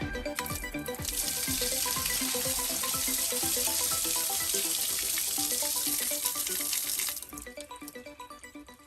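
Water running hard, as from a tap or open pipe. It starts about a second in and stops suddenly about seven seconds in, over background music with a plucked melody.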